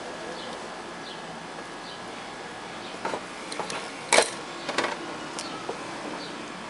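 Steady faint hiss, broken about three to five seconds in by a handful of sharp clicks and taps, the loudest about four seconds in. These are a soldering iron and small tools being handled and set down at a workbench after soldering an LED backlight strip.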